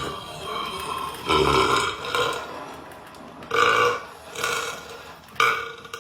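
A man burping loudly several times, in separate belches a second or two apart.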